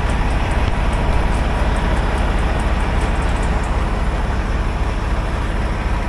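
Steady low rumble of truck engines idling.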